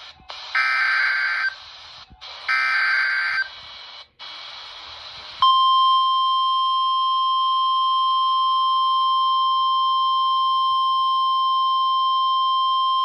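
NOAA Weather Radio Emergency Alert System activation heard through a weather radio's speaker: two roughly one-second bursts of the SAME digital header, then from about five and a half seconds in the steady 1050 Hz warning alarm tone, signalling that a severe thunderstorm warning follows.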